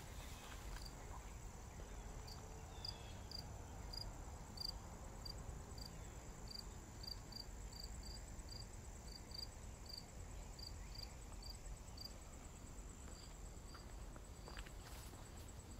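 Crickets calling in autumn woodland: a steady high-pitched trill, with short chirps about two a second from another cricket that stop near the end. A faint low background rumble runs beneath.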